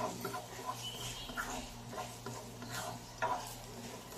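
Plastic spatula stirring and scraping garlic, ginger and onion around an oiled nonstick wok, with the oil sizzling underneath. Sharper taps of the spatula against the pan right at the start and about three seconds in.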